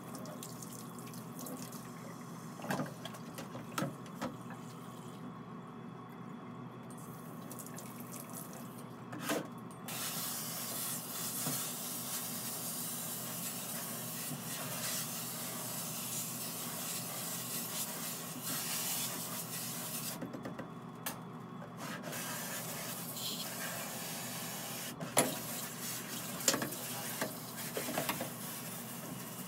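Tap water running into a stainless steel sink while things are rinsed in it. The water starts about ten seconds in, stops briefly, then runs again, with a few sharp clinks and knocks near the end.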